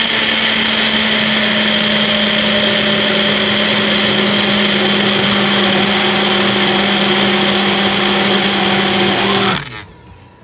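Personal bullet-style blender's motor running at a steady pitch as it blends a shake, then switching off about nine and a half seconds in.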